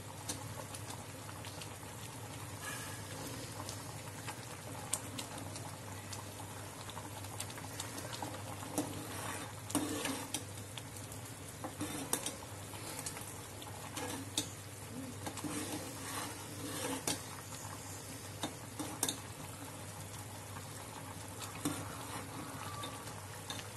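Gram-flour Bombay chutney bubbling in a metal pot while a steel ladle stirs it, with scattered clicks and scrapes of the ladle against the pot.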